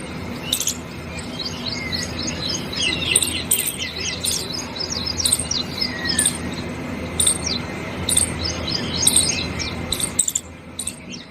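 Many small birds chirping and twittering in quick short notes over a steady background rush of noise. The background rush drops away about ten seconds in, leaving the chirps.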